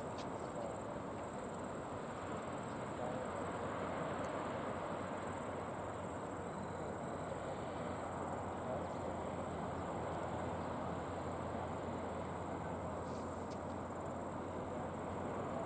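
Steady outdoor ambience: an even hiss with a continuous high, fine-textured buzz over it.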